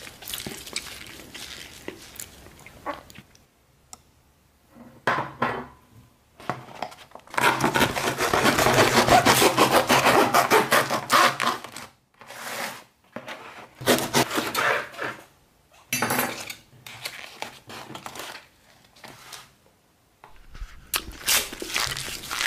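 A knife sawing and scraping through a corrugated cardboard pizza box lid and the pizza beneath it, in separate strokes. The longest and loudest stretch of cutting comes about midway.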